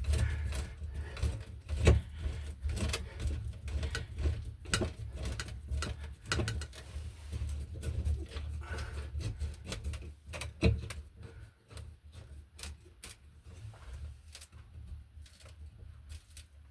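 A screw being driven into the wall to fasten an electrical outlet box, biting into solid material: a run of irregular clicks and creaks over a low rumble, with sharper knocks about two seconds in and near eleven seconds. The rumble eases in the second half.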